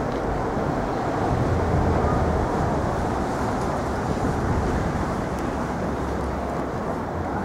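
City street traffic: a steady rumble of passing vehicles, swelling a little about a second in and easing off again.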